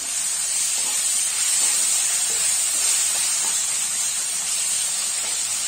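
Onion-tomato masala sizzling in hot oil in a pan, a steady hiss.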